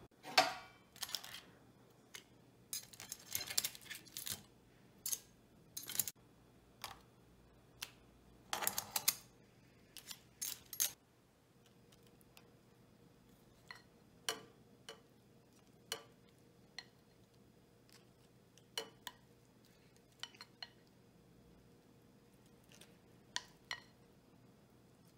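Kitchen handling sounds: crab shells and a spoon clicking, tapping and briefly scraping against a stainless steel pot and bowls. The sounds come thick and fast for about the first eleven seconds, then turn into single taps every second or two.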